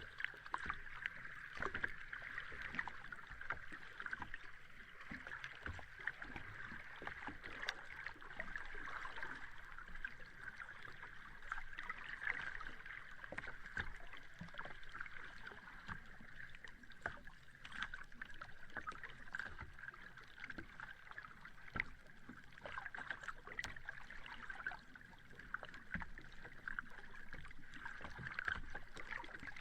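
Sea water washing at the shore: a steady wash with many small crackles and pops throughout.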